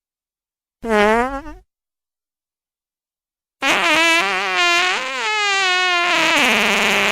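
Fart sound effects: a short pitched fart about a second in, dipping and rising in pitch, then after a gap of silence a longer fart that wavers up and down in pitch. Each cuts off abruptly.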